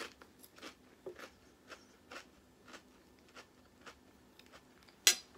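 A person chewing a mouthful of crunchy Quest protein chips with chicken salad: a series of faint crunches about two a second, with one sharper, louder snap near the end.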